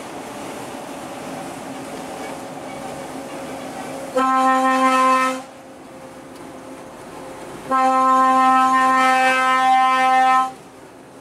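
Truck horn of the Renault Range T520 heard from inside the cab: a blast of about a second, then a longer one of about three seconds, each on one steady note. Under them, the steady drone of the lorry driving along.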